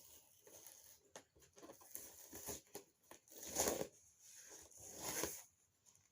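Packaging being handled and unwrapped: irregular rustling and crinkling, with two louder rustles or tears about three and a half seconds in and again about five seconds in.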